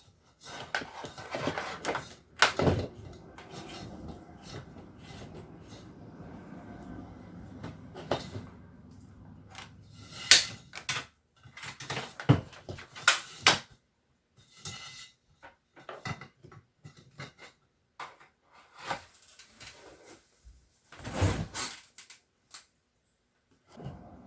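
Irregular clicks, knocks and clatter with some rustling and scraping, from parts and tools being handled at a workbench.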